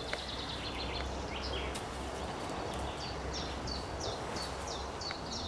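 Songbirds singing: short whistled notes that each fall quickly in pitch, repeated over and over with trilled runs, over a steady low background rumble.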